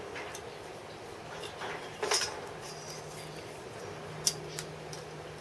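A steel rule and scriber being handled against clamped metal work: a scraping rattle about two seconds in, then two sharp metal clicks near the end, over a faint steady hum.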